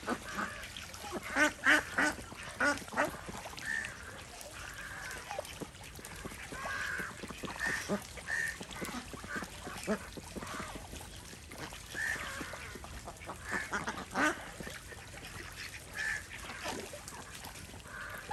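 A flock of domestic ducks quacking on and off while they bathe and splash in shallow water, with a cluster of loud quacks about one and a half seconds in.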